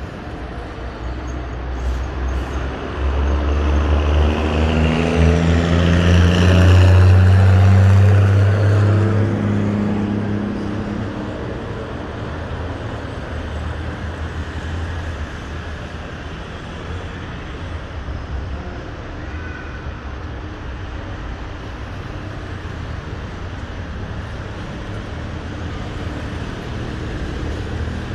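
A heavy road vehicle passes close by, its engine growing loud a few seconds in and peaking about a third of the way through, its engine note climbing as it passes. It then fades into a steady hum of road traffic.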